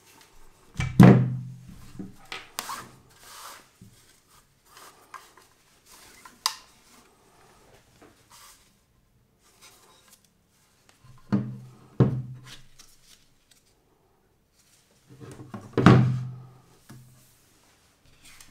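Handling noises from a break-down over-and-under shotgun as its wooden stock, action and barrels are moved about and set on a surface. There are three solid knocks, about a second in, around twelve seconds and around sixteen seconds, with softer rubbing and scraping between them.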